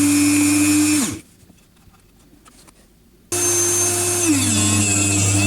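Electric machine motor running with a steady tone, a low hum and a high whine. About a second in its pitch drops and it cuts out to near silence with a few faint clicks. It comes back suddenly about two seconds later at a higher pitch, which then slides down.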